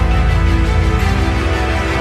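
Background music with sustained notes and a strong pulsing bass.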